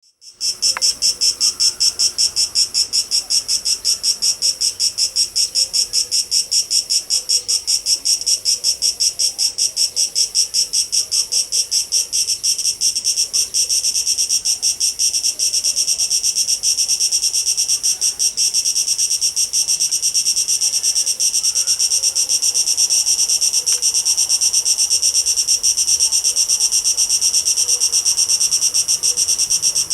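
Cicadas singing in a loud, high-pitched, rapidly pulsing buzz. It becomes steadier and more continuous about halfway through.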